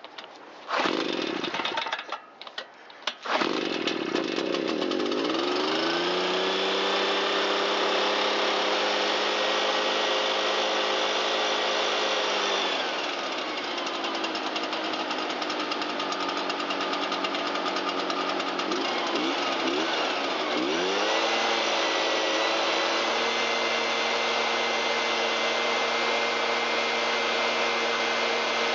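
Shindaiwa EB802RT backpack blower's two-stroke engine running. It cuts out briefly a few times in the first few seconds while excess fuel clears from the crankcase after choking, then runs steadily. It is throttled up about five seconds in, eases back near the middle, and is throttled up again near the end, now running on a correctly fitted carburetor and new fuel hoses.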